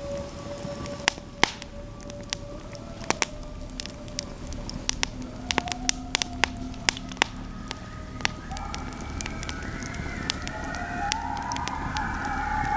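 Campfire crackling and popping throughout, with a wavering howl of several pitches that comes in about eight seconds in and grows louder.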